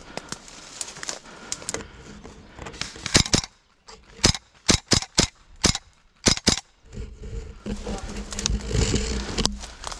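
Airsoft guns firing: about nine sharp single shots at uneven spacing, between about three and six and a half seconds in, then a couple of seconds of steady noise.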